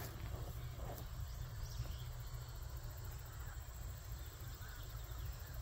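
Farm-field ambience: a steady low rumble of wind on the microphone, with a few faint chirps from birds or insects and an occasional light click.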